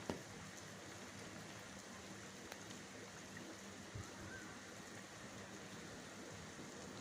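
Steady rain, a soft even hiss, with a few faint drips or taps, the clearest just after the start and about four seconds in.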